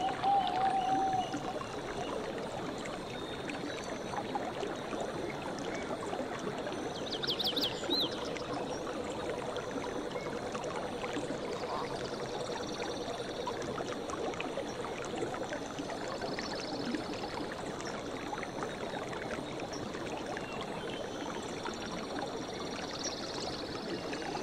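Tropical forest ambience: a dense, steady chorus of insects and birds, with short high chirps repeating throughout. About seven seconds in, a bird gives a quick run of about five descending whistled notes.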